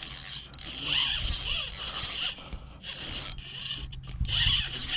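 Penn 4000-size spinning reel's drag buzzing in repeated bursts as a big, hard-running jack crevalle pulls line off against it.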